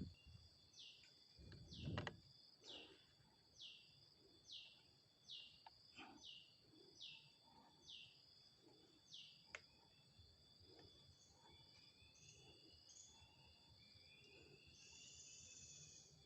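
Faint bird calling a single short descending note again and again, about one a second for some nine seconds, then softer gliding calls. A steady high insect drone runs underneath, and there is a soft low rustle about two seconds in.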